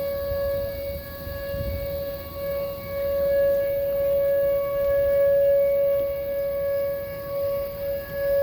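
Whelen WPS-2910 electronic tornado siren sounding a steady tone. It holds one unchanging pitch while its loudness swells and fades.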